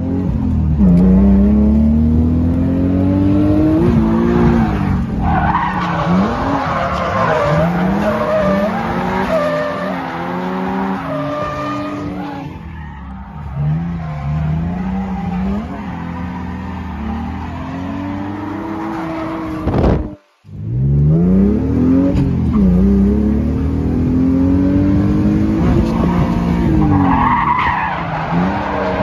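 Nissan 180SX drift car's engine revving up and dropping back again and again as it drifts, with tyres squealing. The sound cuts out for a split second about two-thirds of the way through, then the revving picks up again.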